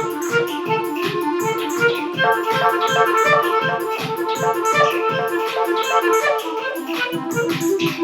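Electronic groove backing track: a fast, steady drum-machine beat with a repeating keyboard pattern, denser from about two seconds in.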